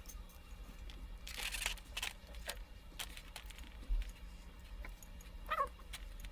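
A lychee's brittle rind being cracked and peeled by hand: a short crackling rustle, then scattered small clicks and snaps. Near the end there is a brief, rising, squeaky whine.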